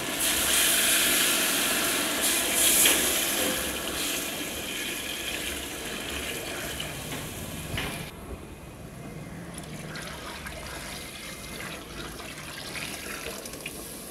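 Water poured from a bowl into a large aluminium cooking pot and splashing onto the fried dal and masala: the measured cooking water going in for the rice. The pour is loudest in the first few seconds, tails off, and turns quieter about eight seconds in.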